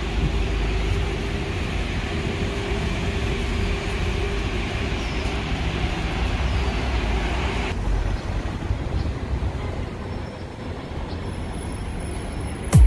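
Hong Kong tram running on its rails: a steady low rumble with a sustained whine over the first few seconds. The sound changes abruptly about two-thirds of the way in, and a sharp click comes right at the end.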